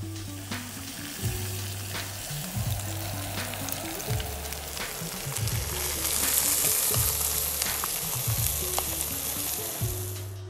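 Steak sizzling in a cast-iron skillet, the frying getting louder about halfway through, over background music with a steady bass line.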